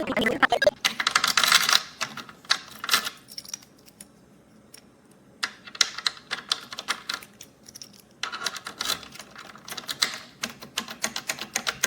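Quick runs of sharp clicking and clattering, like small hard parts being pressed or handled, in four bursts with short quiet gaps between them.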